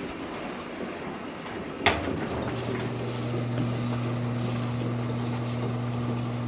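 A click about two seconds in, then a top-loading washing machine's drain pump starts with a steady low electrical hum, now pumping after debris was cleared out of it.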